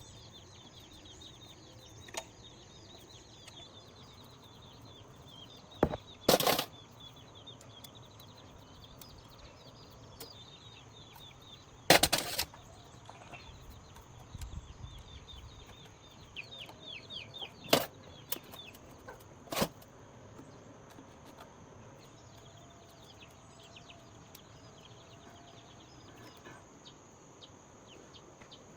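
Birds chirping over a steady high insect drone, broken by about five sharp knocks at uneven intervals, the loudest about twelve seconds in.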